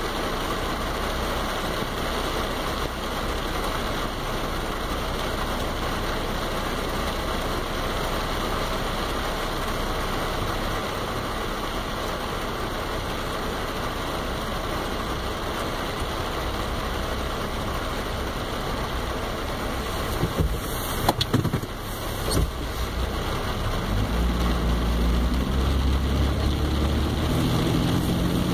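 Steady rain falling, an even hiss, with a few sharp knocks about twenty seconds in and a low rumble building near the end.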